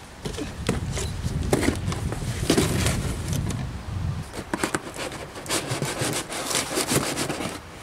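Irregular clicks, knocks and scraping of hand tools and metal parts being handled on the truck's front suspension, over a low rumble that stops about four seconds in.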